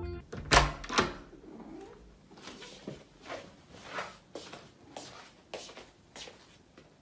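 A series of irregular clicks and knocks, the two loudest about half a second apart near the start, the rest fainter and spaced roughly every half second.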